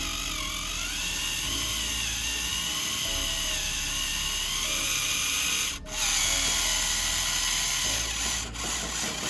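Small electric gear motor of a homemade RC model straining under load, pulling the bogged tractor and its loaded trolley. Its high whine wavers in pitch and cuts out briefly a little before six seconds.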